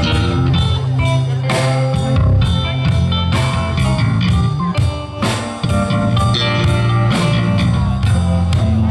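Live band playing an instrumental blues-soul passage, with electric guitar prominent over bass, drums and keyboard.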